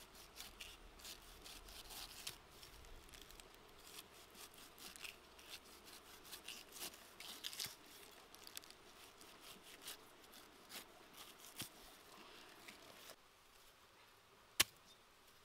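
Knife blade cutting the rind off a pineapple: a quick run of soft, crisp slicing and scraping strokes that thins out about two seconds before the end, then one sharp click.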